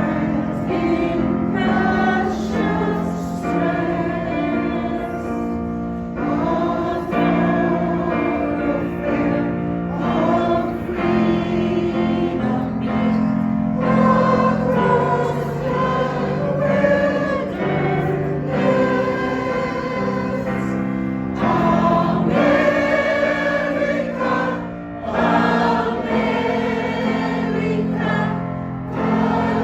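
Community choir singing together, phrase after phrase, over a steady low accompaniment.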